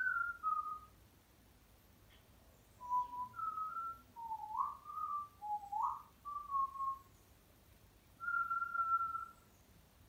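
African grey parrot whistling: a short phrase at the start, then a run of short clear notes, several sliding upward, and one longer level note near the end.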